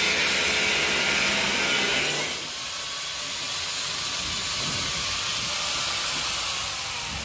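Angle grinder grinding the steel frame at the edge of a door, a steady hiss of grinding; a little over two seconds in it drops to a quieter, lighter grinding.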